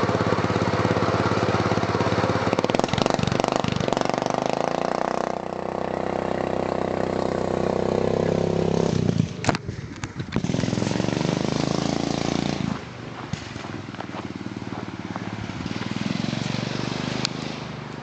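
Craftsman racing lawn mower engine, with cam and exhaust work, running hard and changing speed. It cuts back sharply about nine seconds in, picks up again, then drops to a lower level about thirteen seconds in.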